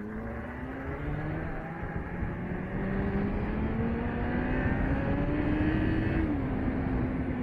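Motorcycle engine pulling away under acceleration, its pitch climbing steadily for about six seconds, then dropping suddenly as it shifts up a gear and running on evenly.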